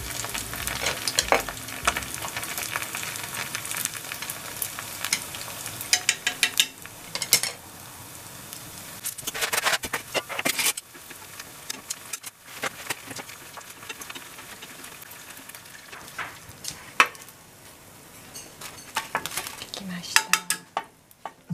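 Vietnamese-style spring rolls deep-frying in a pan of hot oil: a steady sizzle with crackling and scattered sharp pops and clicks.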